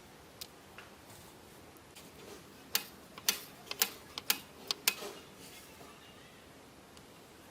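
A quick run of about eight sharp clicks and taps over roughly two seconds, starting about a third of the way in, over a faint steady background.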